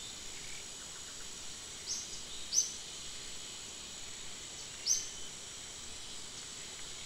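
Forest ambience: a steady high insect drone, with three short, high, falling bird chirps, near 2 s, 2.6 s and 5 s.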